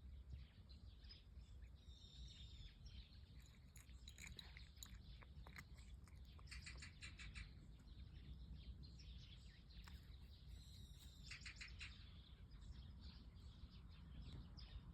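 Faint birds chirping, with a couple of quick trilled runs of notes, over a steady low background rumble.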